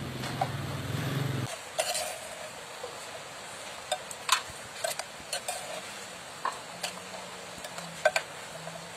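Metal spoon stirring claypot chicken rice, scraping and clinking against the inside of the clay pot in irregular strokes.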